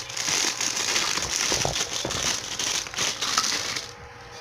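Thin plastic packaging crinkling and crackling as it is handled, stopping about four seconds in.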